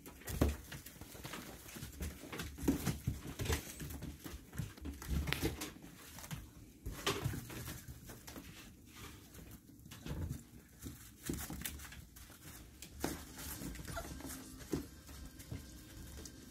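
Husky puppies whimpering and moving about in a plastic tub, with many short scratches and knocks of paws against the plastic.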